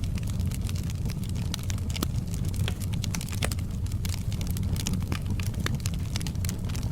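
Wood fire in a fireplace crackling: a steady low rumble of flames under many quick, irregular snaps and pops of burning wood.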